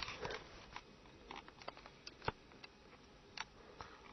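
Faint rustling with scattered light clicks and knocks, the sharpest about two seconds in: movement and handling noise.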